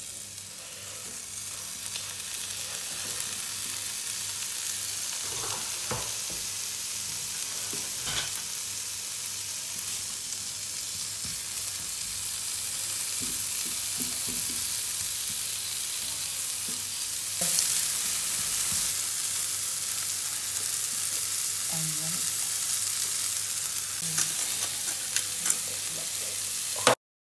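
Bitter melon slices frying in hot oil in a pan: a steady sizzling hiss that gets louder about two-thirds of the way through, with a few knocks and scrapes of a wooden spatula. It cuts off suddenly near the end.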